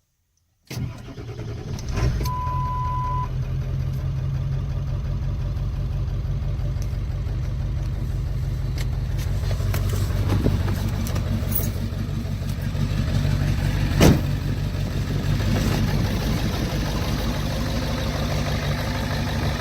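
Car engine running steadily, heard from inside the cab; it comes in suddenly under a second in. A single steady beep about two seconds in, and one sharp knock near fourteen seconds.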